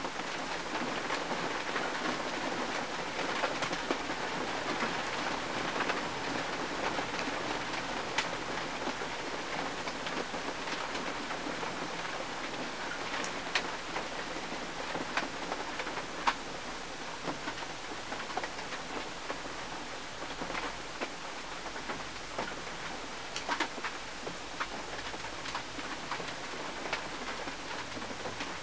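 Steady rain falling on a 1951 Mercury's windshield, an even patter with scattered sharper drop strikes.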